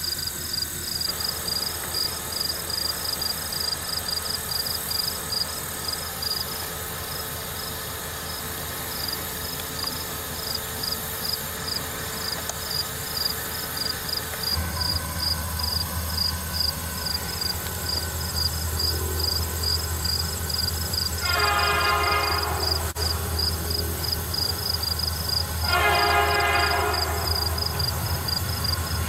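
Insects chirping in a steady fast pulse throughout. About halfway through, the low rumble of approaching BN diesel freight locomotives sets in, and near the end the lead locomotive sounds its horn in two blasts, each about a second and a half long, a few seconds apart.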